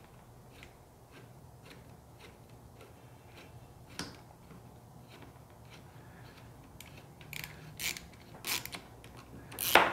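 Socket ratchet clicking at about two clicks a second as it runs a nut onto the wheel-bracket bolt, with a sharper click about four seconds in. Louder scraping metal clicks come over the last few seconds, the loudest just before the end.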